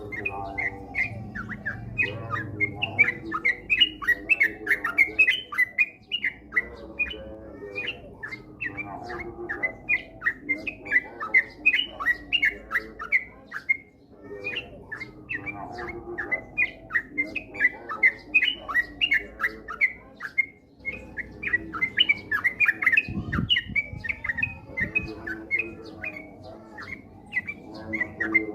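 Yellow-vented bulbul (trucukan) singing in a fast, continuous run of chirpy notes, several a second, with a few short breaks.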